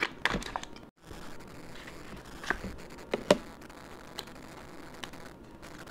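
Foil lid of a Kinder Joy egg crinkling, with plastic clicks as it is handled and peeled off. The sound comes as a string of separate ticks and crackles, the sharpest about three seconds in.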